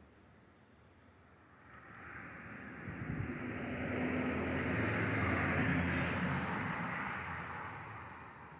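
A motor vehicle passing by: its engine hum and road noise swell up over a few seconds, peak in the middle, then fade away.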